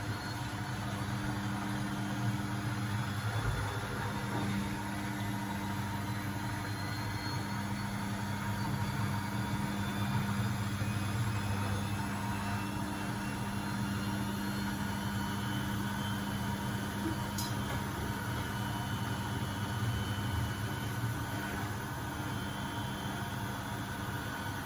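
Beko WMB71642W washing machine on its short 600 rpm final-spin burst: the drum spinning steadily, with a motor hum and a fainter high whine over it.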